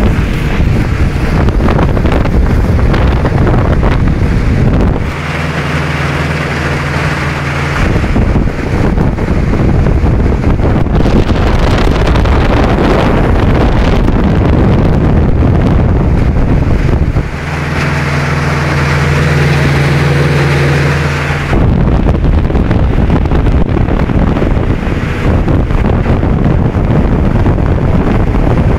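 Vikhr two-stroke outboard motor running steadily under way, mostly buried under heavy wind buffeting on the microphone. Twice the wind eases and the engine's steady drone comes through clearly.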